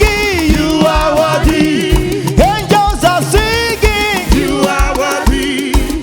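Live gospel praise music: a band with a steady drum beat and a lead voice singing over it.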